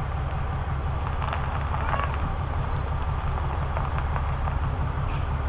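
Diesel pickup truck engine idling: a steady low rumble, with a few faint light ticks over it.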